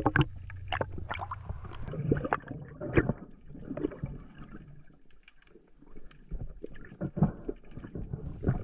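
Underwater water noise picked up by a diver's camera: gurgling bubbles and water movement, with irregular short clicks and brief blips.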